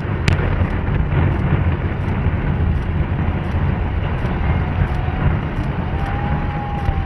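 Concrete and steel stadium grandstand collapsing after an implosion: a continuous low rumble of falling structure, with a sharp crack about a third of a second in.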